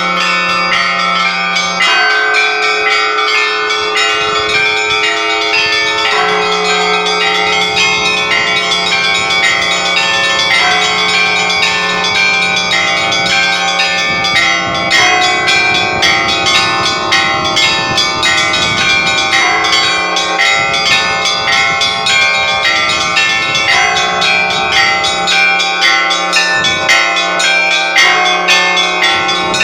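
A cathedral's new set of church bells rung together: rapid, overlapping strikes of smaller, higher bells over the long, sustained ring of a deeper bell.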